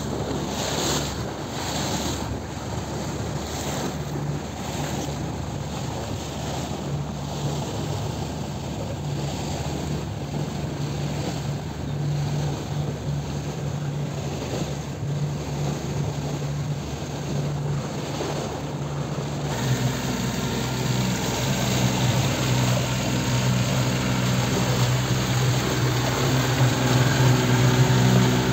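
Outboard motor of a Rota Fisher 6.60 boat running steadily underway, with water noise around the hull. About two-thirds of the way through the sound changes abruptly, and the engine hum becomes louder and fuller.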